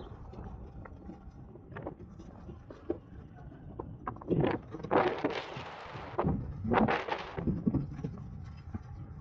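Wind buffeting the microphone of a camera riding along on an electric bike: a steady low rumble, with louder gusts of rushing noise between about four and seven seconds in.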